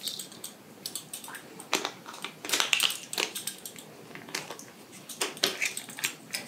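Irregular light clicks and taps of a metal measuring spoon against a small glass spice jar while celery salt is measured out, a quick cluster of them about halfway through.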